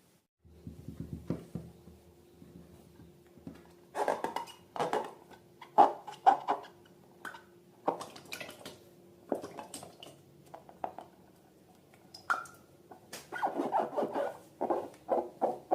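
Slime being handled and squeezed: irregular wet squelches and sticky crackles, clustering into busier runs, over a faint steady hum.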